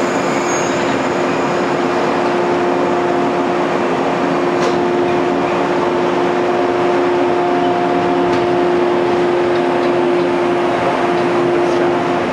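Yellow JR West local electric train, sets D20 and A10, slowly pulling out of the station. It makes a steady running rumble with a constant hum, and faint clicks about a third, two thirds and near the end of the way through.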